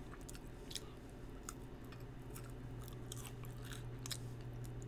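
A person chewing an ice cream cone: faint, irregular crunching clicks, over a steady low hum.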